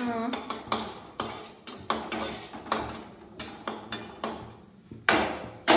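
Metal spoon clinking and scraping against a steel pan as cashews are stirred in ghee: a string of irregular clinks, two or three a second, with two louder strikes near the end.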